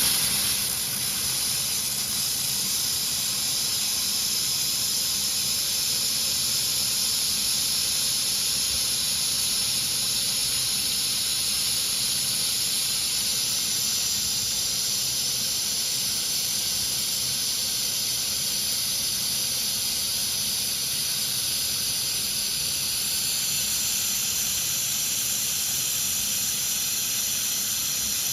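A 2 kW fiber laser making a penetration weld in 6 mm carbon steel: a steady, high hiss that starts abruptly as the beam fires and holds level.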